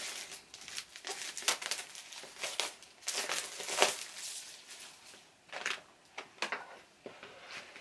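Clear plastic record sleeve crinkling as a vinyl LP's gatefold jacket is slid out of it and handled: a run of irregular crackles, loudest about four seconds in.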